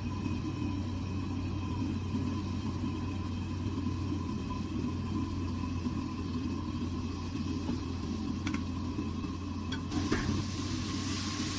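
Commercial wok range running with a steady low rumble, while battered pork slices fry in the oil of the wok. A few sharp clicks come between about eight and ten seconds in, and a brighter hiss rises near the end.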